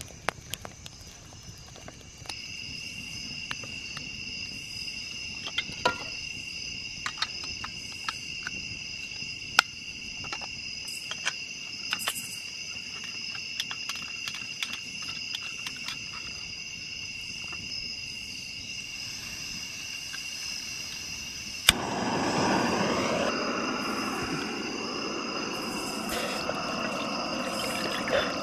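Night insects chirring steadily on two high notes, with scattered sharp clicks while the camp stove parts are handled. From about 22 seconds in, water is poured from a plastic jug into the stove's metal pot and grows louder, with a gurgle that changes pitch as the pot fills.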